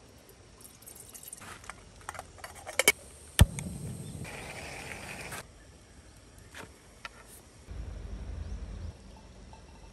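Small clicks as a gas-cartridge camping stove is handled, then one sharp igniter click about three and a half seconds in and the burner hissing as it lights, for about two seconds. Near the end, hot water poured from a kettle onto coffee grounds for about a second.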